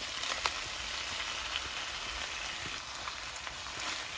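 Chicken and vegetables sizzling in a hot wok as boiled spaghetti is tossed in with tongs and a spatula, a steady frying hiss. A sharp click comes about half a second in.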